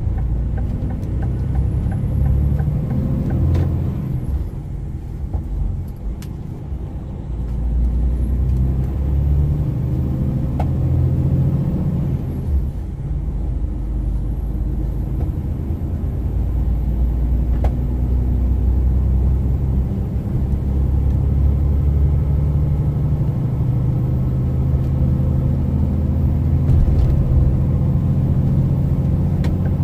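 DAF XG truck's diesel engine running under load while driving, heard inside the cab. The engine note drops and picks up again a couple of times.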